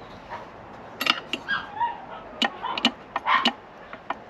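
A dog whining and giving short yips, with a few sharp clicks in between.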